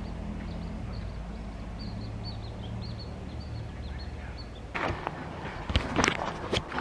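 A small bird chirping over and over in short high notes above a steady low hum. From about five seconds in come several sharp knocks or crunches.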